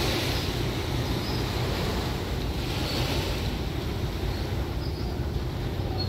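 Boat engine running with a steady low drone, with water rushing and wind buffeting the microphone.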